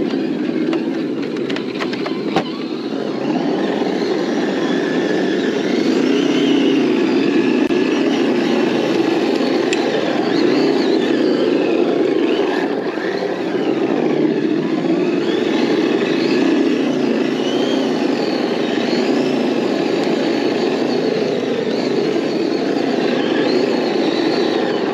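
Radio-controlled crawler trucks driving: electric motors and gearboxes whining, the pitch rising and falling with the throttle, over a steady lower drone. A few clicks and knocks about two seconds in, as tyres work over the ramp.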